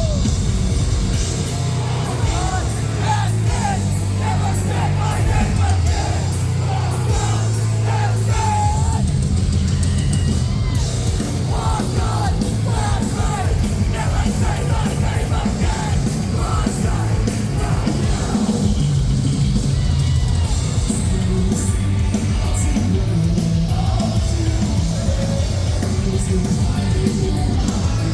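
Metalcore band playing live and loud: distorted guitars, bass and drums, with a vocalist yelling and singing over them.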